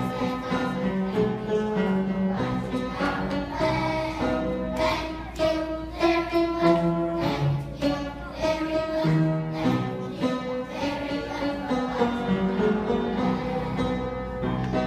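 Instrumental music: a melody of held notes changing about once a second over lower accompanying notes.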